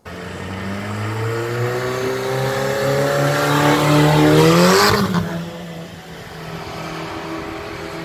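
Car engine revving hard, its pitch climbing steadily for about five seconds over a growing hiss, as the car spins its wheels in the snow. About five seconds in the revs drop off sharply, and the engine runs on lower and steadier.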